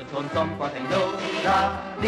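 Music playing, with several instruments and a regular beat.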